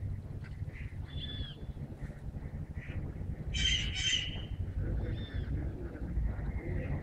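Bird squawking: a short call about a second in, two loud harsh squawks in quick succession near the middle, and another short call about five seconds in, over a low steady rumble.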